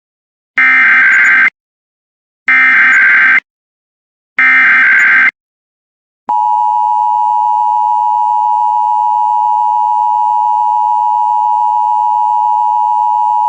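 Emergency Alert System SAME header for a required weekly test: three bursts of data tones, each about a second long. About six seconds in comes the two-tone attention signal (853 and 960 Hz), a loud, steady tone that keeps going.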